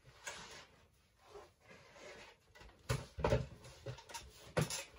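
Packing paper and bubble wrap rustling and crinkling as they are handled in a cardboard shipping box, in irregular bursts. The louder crinkles and soft bumps come about three seconds in and again near the end.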